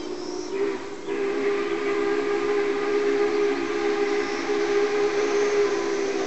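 Union Pacific 844 steam locomotive's chime whistle blowing a long, steady chord of several notes, with a brief break about a second in, from the engine still some way down the line.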